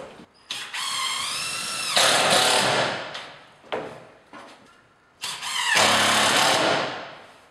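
Cordless drill driving fasteners through a plasterboard sheet into the ceiling, in two runs: each time the motor spins up with a rising whine and then runs loud and steady for about a second, with short clicks and knocks between the runs.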